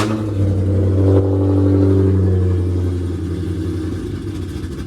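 Dodge Charger R/T's 5.7-litre Hemi V8, fitted with a burble tune, running at a steady fast idle just after a cold start. The note slowly fades near the end.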